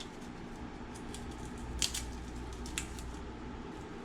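Quiet kitchen background with a steady low hum, and two light clicks of things being handled, about two and three seconds in.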